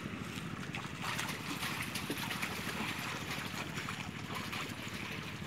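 Faint trickling and sloshing of shallow water in a flooded rice paddy as a person wades through it, over a steady low hum.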